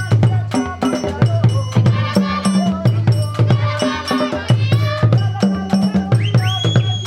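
Live traditional Kenyan dance music: drums beating a steady repeating pattern with rattles and sharp percussion strikes, and voices singing. A high note is held from near the end.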